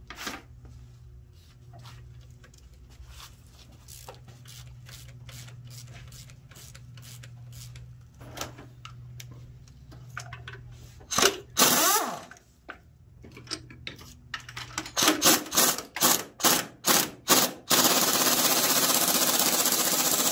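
Air tool on a shop air hose spinning off an engine mount bolt. It runs briefly about eleven seconds in, then in a string of short rapid bursts, then runs steadily near the end. Before that there are only light clicks of hand work over a low steady hum.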